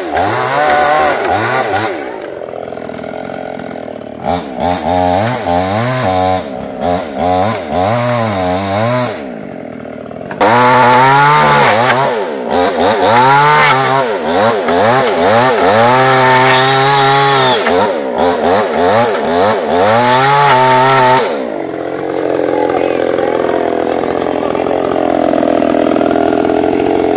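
Two-stroke Shogun chainsaw sawing through bamboo culms. It is revved up and down in quick blips, then held at full throttle through a cut for about ten seconds from about ten seconds in, then drops to a lower, steadier running.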